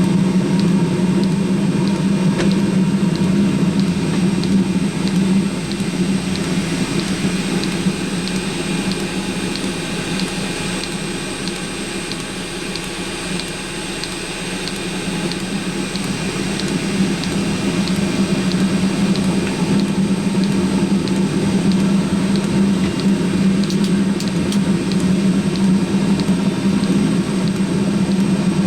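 Eberspacher D1L diesel heater running just after lighting: a steady hum from the combustion fan and burner, with a regular light ticking from the fuel dosing pump, about two ticks a second. It dips a little in level midway and comes back up as it sustains combustion.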